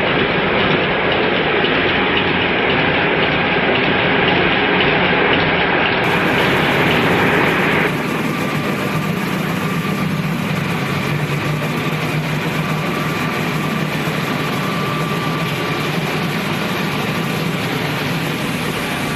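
Soap-making machinery running: a steady mechanical din with a low motor hum. About eight seconds in it drops slightly in level and a steadier hum comes through.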